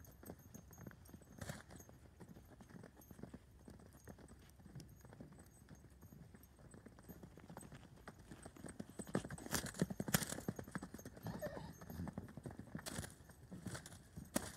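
Hoofbeats of two young Gypsy horses cantering loose on a soft dirt arena, a dull, uneven drumming that grows louder for a few seconds past the middle as they pass closer.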